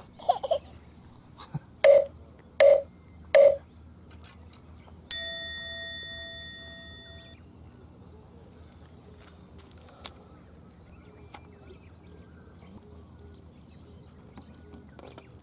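Three loud, short sounds in quick succession, then a single bell-like chime sound effect rings out and fades over about two seconds. After it only a faint steady outdoor background remains.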